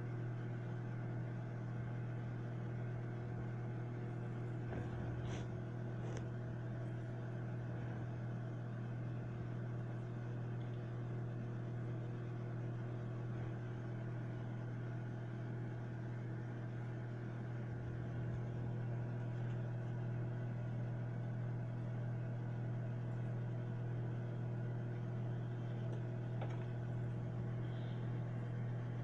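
Microwave oven running: a steady low hum with a few faint ticks.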